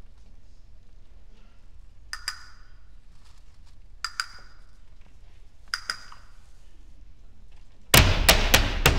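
Three pairs of short, sharp clicks about two seconds apart. About a second before the end, loud flamenco footwork begins: a dancer's shoes striking the stage platform in rapid, even strokes, about three or four a second.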